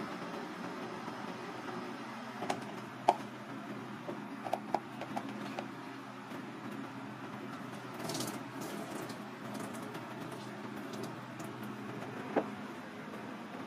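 Steady low kitchen hum with a few light taps and clicks of bowls and utensils being handled, and a brief soft hiss about eight seconds in.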